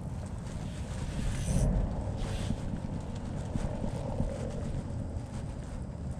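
Strong wind buffeting the microphone: a low rumble that swells in a gust about a second and a half in.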